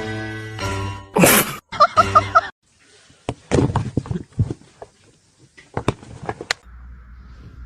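A snatch of music with short loud bursts, then a run of sharp clicks and knocks, ending in a faint steady hum.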